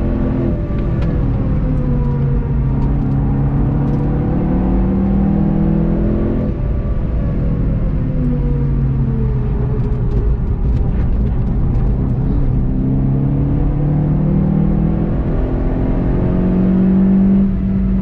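In-cabin sound of a VW Golf 7.5 GTI TCR's turbocharged 2.0-litre four-cylinder driven hard on track. The engine note falls as the car slows for a corner, then climbs again under hard acceleration, getting louder until an upshift near the end.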